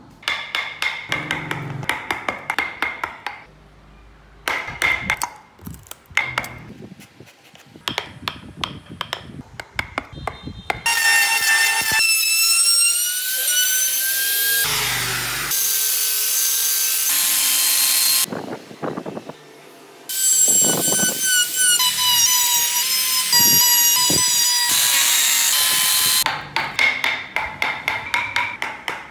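Hand chisel strokes cutting and shaving wood, quick scraping strokes one after another. Through the middle an electric trim router runs with a high whine that shifts in pitch as it cuts into the wood. Chisel strokes resume near the end.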